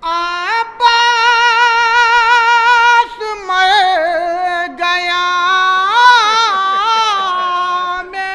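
A single high voice singing unaccompanied in the style of a Shia nauha lament, holding long notes with a wavering vibrato and ornamented turns. The voice pauses briefly for breath about three seconds in and again just before five seconds.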